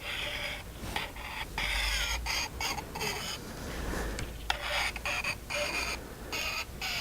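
Way oil being sprayed onto the mill's slide: a series of short hissing bursts, each starting and stopping sharply.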